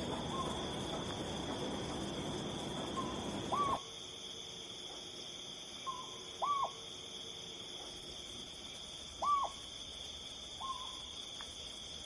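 Sunda scops owl calling: single short hoots that rise and then fall in pitch, repeated about every three seconds, with fainter short notes in between. A steady high tone runs behind the calls.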